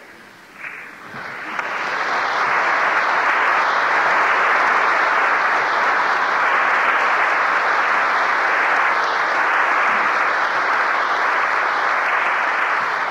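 Congregation applauding, building up over the first couple of seconds, holding steady, then easing off near the end.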